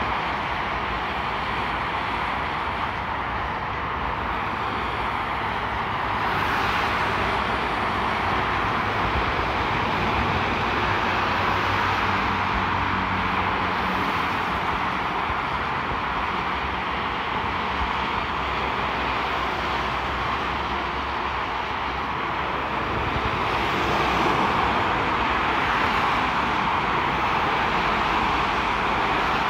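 Heavy motorway traffic: lorries, vans and cars passing at speed, a continuous rush of tyre and engine noise that swells louder about six seconds in and again near the end.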